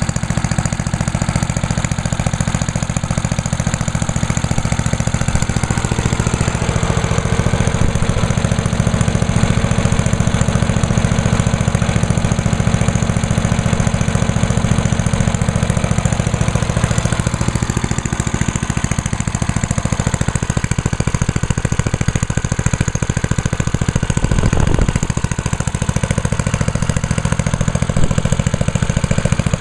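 The 10 horsepower Tecumseh HM100 engine of an MTD Yard Machines chipper/shredder running steadily, just after starting on a single pull.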